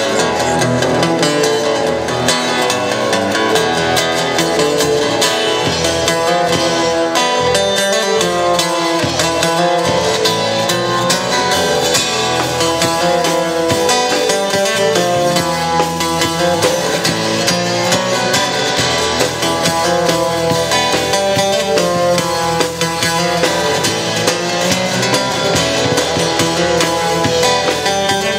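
Steel-string acoustic guitar played solo, with a busy run of quickly picked notes.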